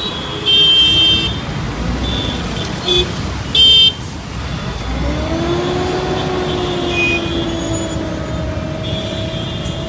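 Street traffic with car horns honking: a longer honk about half a second in, a short toot near three seconds, and another loud honk just before four seconds. A steady low hum sets in from about five seconds in.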